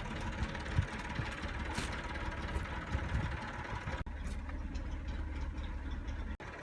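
An engine idling with a steady, low, pulsing rumble, with a few sharp clicks over it. It breaks off abruptly for an instant about four seconds in and again near the end.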